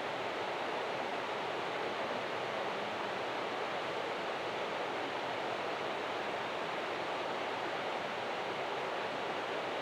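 River water rushing, a steady unbroken noise.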